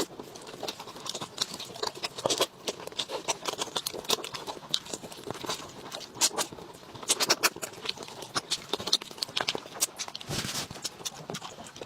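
Close-up eating sounds: a person chewing and smacking food in a quick, irregular run of wet clicks, with a short louder slurp or sucking noise near the end.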